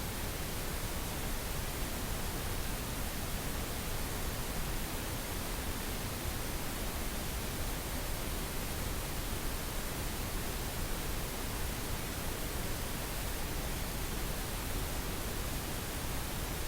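Synthesized pink noise: an even, steady hiss across all frequencies, with no tones or breaks.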